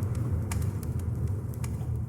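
Dark ambient music: a deep, steady low drone with scattered faint crackles and clicks over it.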